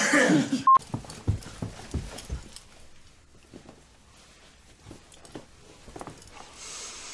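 A short beep, then footsteps thudding on carpeted stairs: a run of heavy steps about a second in, fading to lighter, scattered knocks.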